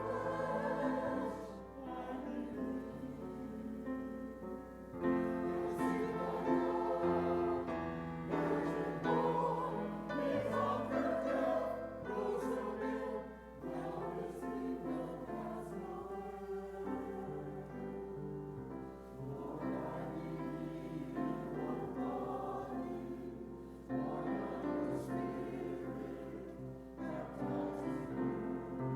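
Church choir singing with musical accompaniment, in long held phrases with short breaks between them.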